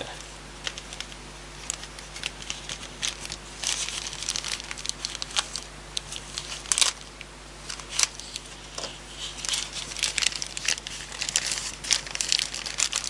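Plastic parcel bag crinkling and rustling in irregular crackles as it is handled and opened.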